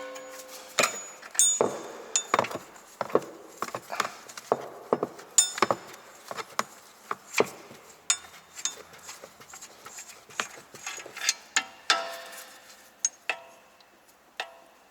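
Tools knocking and striking on a seized lower nut of a Skoda Octavia III front stabilizer link: irregular sharp metallic knocks, a few with a short ringing tail, as the nut is forced loose.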